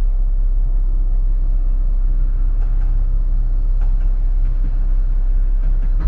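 Steady low rumble of road traffic, with cars idling in a queue at a traffic light.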